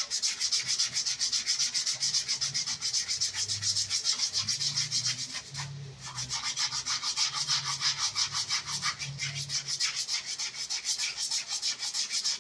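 Sandpaper rubbed by hand over the parking-brake shoes in quick back-and-forth strokes, about four or five a second, with a brief pause about six seconds in, cleaning up the shoe linings.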